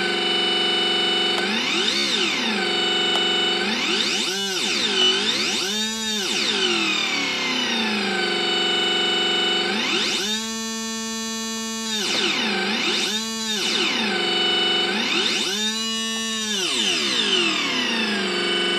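Homemade 4-bit linear PCM synthesizer built from TTL logic chips, playing a stored waveform as a buzzy tone thick with harmonics. Its internal clock rate is swept, so the pitch rises and falls in repeated arcs and holds high for about two seconds around the middle, with a steady high whine underneath.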